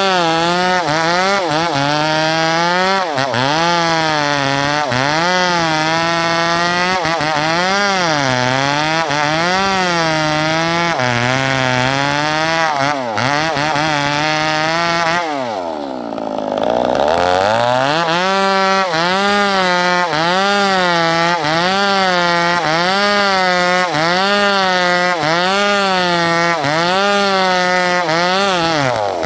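Two-stroke chainsaw running under load, rip-cutting a terap log lengthwise into boards. The engine note rises and falls every second or two as the chain bites and eases in the cut. About halfway through it drops briefly toward idle, then revs back up into the cut.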